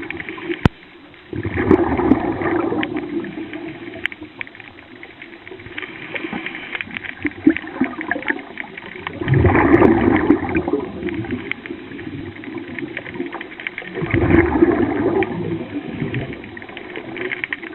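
Underwater bubbling and gurgling, swelling in three surges about five seconds apart, like a diver's exhaled breath bubbling out of a scuba regulator.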